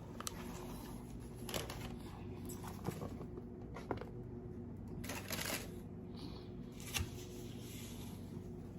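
Close-miked eating sounds from a burger being chewed: soft scattered mouth clicks and rustles about a second or so apart, a slightly louder one about seven seconds in, over a steady low hum.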